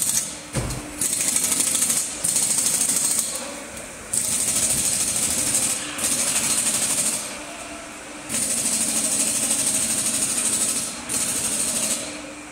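Pneumatic workshop tool running in about seven bursts of one to two and a half seconds each, a rapid rattle with a strong hiss of air, stopping and starting with short gaps. A low thud comes about half a second in.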